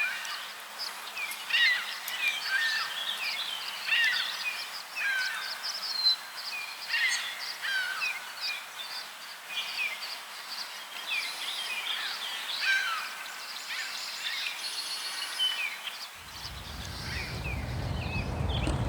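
Small birds chirping and twittering, many short quick calls overlapping. A low rumble comes in near the end and grows louder.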